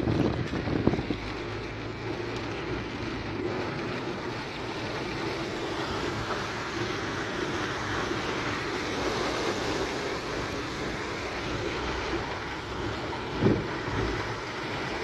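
Steady noise inside a moving car in a heavy rainstorm: rain on the car and the tyres hissing through water on a flooded road. A few knocks in the first second, and a single short thump about 13 seconds in.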